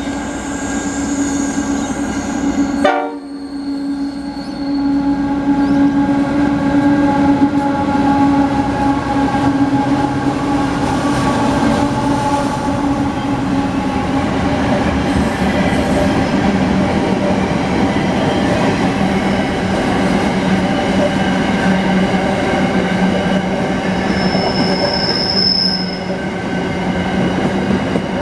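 A train running past with a steady, loud drone and rail noise, broken off abruptly about three seconds in.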